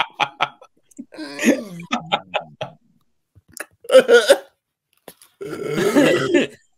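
A man laughing hard into a close microphone in several loud bursts with short pauses between them.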